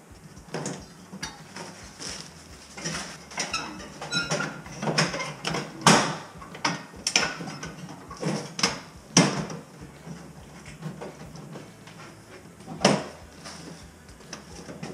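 Sheet-metal hydronic baseboard cover and end-cap parts being handled and fitted by hand: an irregular run of metallic clicks and knocks, the loudest about six, nine and thirteen seconds in.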